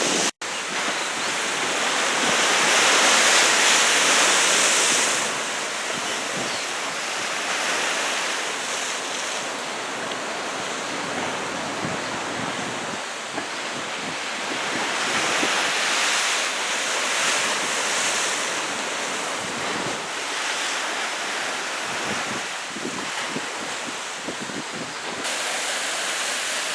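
Ocean surf from a typhoon swell: waves breaking and washing in, with wind buffeting the microphone. The surf swells louder a couple of seconds in, and the sound cuts out for an instant just after the start.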